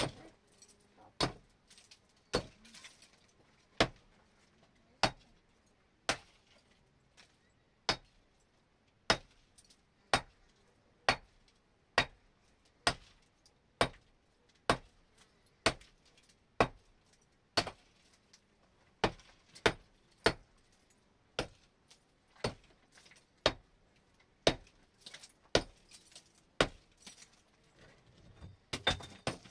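Sharp, hard knocks at a steady pace of about one a second, from brick and masonry building work.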